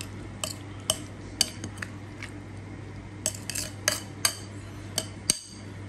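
A metal spoon clinking against a bowl as raw fish ceviche is stirred: a dozen or so irregular taps, each with a short bright ring.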